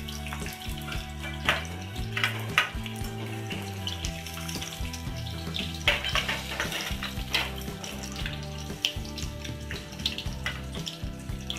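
Boiled potatoes sizzling in hot oil in a steel kadhai, with a slotted steel skimmer scraping and clinking against the pan several times as the potatoes are lifted out.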